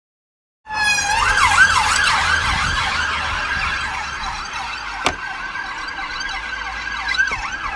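Police siren starting abruptly under a second in, sweeping rapidly up and down in a yelp over a steady high tone, with a low rumble beneath and a single sharp click about five seconds in.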